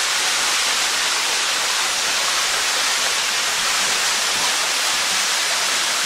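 Small waterfall pouring into a narrow rock cleft: a steady rush of falling and splashing water.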